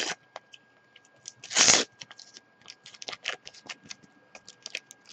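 A foil Panini FIFA 365 sticker packet being torn open and crinkled: a run of short crackles and rustles, with one longer, louder rip about one and a half seconds in.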